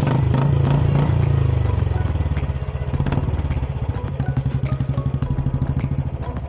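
Royal Enfield Bullet 350's single-cylinder engine idling through an aftermarket chrome silencer, a steady low exhaust thump. It is louder for the first couple of seconds, then settles into an even, separated beat.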